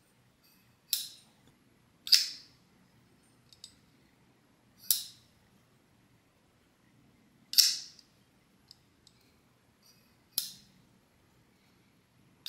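Tactile Knife Co. Archer flipper knife being flicked open and snapped shut in the hand. The blade gives five sharp metallic snaps a few seconds apart, with faint clicks between them. The action is still brand new and not yet broken in.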